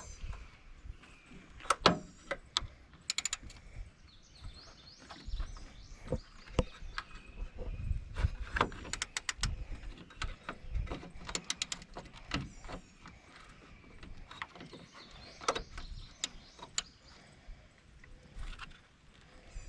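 Irregular metal clicks and knocks, with runs of quick ratchet clicks, as a socket wrench works on the 13 mm bolt of the lower hood latch.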